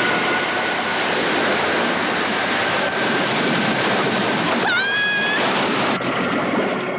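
Stormy sea sound effect: heavy waves and wind, a dense steady rush of noise. About five seconds in, a short high-pitched call rises and is held for about half a second.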